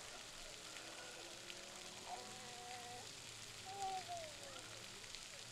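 Children's faint, distant voices at play: one held call about two seconds in, then a louder call that falls in pitch around four seconds in, over a steady outdoor hiss.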